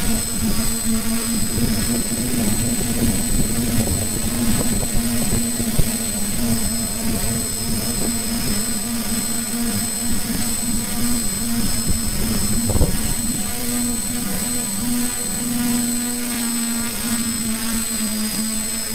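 Hexacopter drone's electric motors and propellers running in flight, heard from the camera on board: a steady whirring hum that wavers slightly in pitch, with a constant high whine above it.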